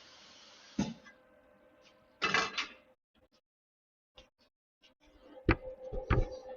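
Steel pieces being handled and set down on metal. A steady hiss cuts off at a sharp knock about a second in, then there is a brief metallic clatter. After scattered small clicks come two sharp metal impacts that leave a ringing tone near the end.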